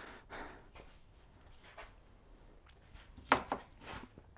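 Quiet handling noises of gloved hands working among engine-bay parts and tools, with a short, sharp clatter a little over three seconds in and a softer one just after.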